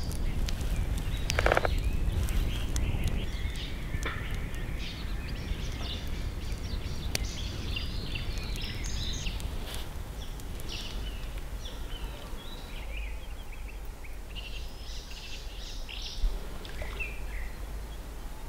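Small birds chirping and calling repeatedly over a steady low rumble, with a few sharp clicks in the first half.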